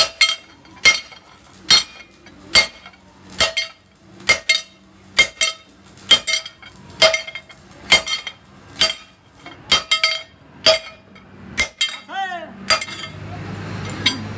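Hand hammer striking a steel plate held on a steel anvil block, shaping the plate: regular ringing metal blows about one a second, sometimes in quick pairs.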